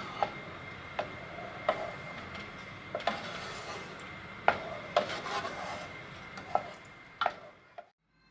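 A utensil stirring in a pot or pan, knocking and scraping against it: about ten sharp knocks at uneven intervals with softer rubbing between. The sound cuts off suddenly near the end.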